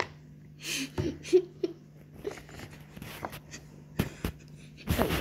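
Scattered soft pops and clicks of silicone bubbles being pressed on a pop-it board game, with brief rustles of handling.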